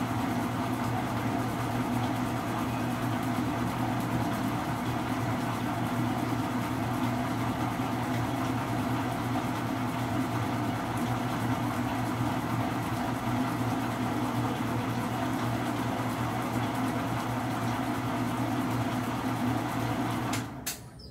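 Commercial planetary stand mixer running with a steady motor hum, cutting off suddenly with a click near the end.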